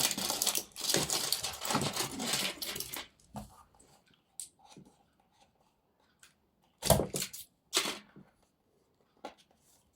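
A parcel's packaging being torn open and rustled for about three seconds, followed by a few small clicks and two louder knocks about seven and eight seconds in.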